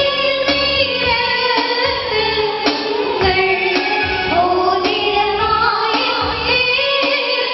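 Amplified choir, led by women's voices, singing a hymn over electronic keyboard accompaniment.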